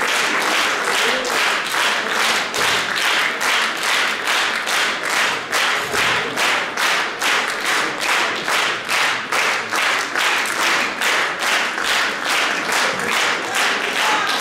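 Audience clapping in unison, a steady rhythmic beat of about three claps a second.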